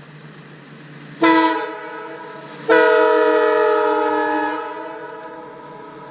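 Leslie S3L three-chime train air horn blown twice: a short blast, then a longer one of about two seconds that fades off. Each blast sounds its chord of roughly 311, 440 and 475 Hz.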